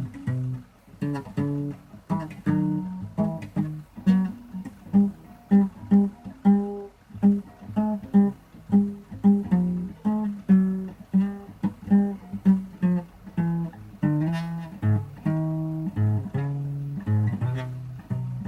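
Guitar playing an improvised blues, a run of single plucked notes mostly in the low register, about two a second.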